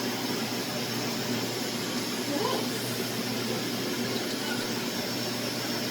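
Vacuum cleaner running steadily: a constant rush of air with a steady high whine from the motor.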